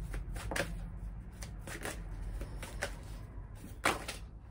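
A deck of large cards shuffled by hand, a run of quick, irregular soft flicks and slaps of card on card, with one sharper, louder snap about four seconds in.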